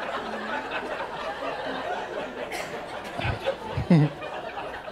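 Comedy-club audience laughing at a punchline, the laughter slowly dying down, with one louder voice breaking out about four seconds in.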